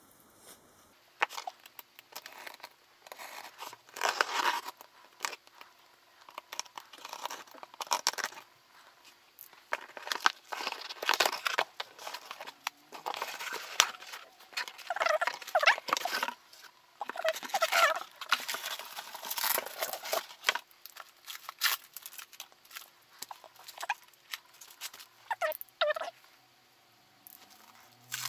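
A taped cardboard box being opened with a box cutter and by hand: cardboard scraping and rustling, with packing tape ripping off in several short squeaky screeches, and paper and plastic wrap crinkling.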